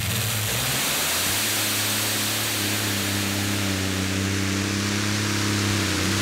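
Multi-engine supercharged V8 Heavy Modified pulling tractor running flat out under load as it pulls the weight sled, a loud, steady roar.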